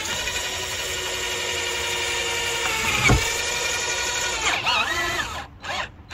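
Cordless drill boring a large hole through the metal van roof, its motor whining steadily under load. There is a sharp knock about three seconds in. Near the end the pitch wavers and the drill stops, then runs again briefly.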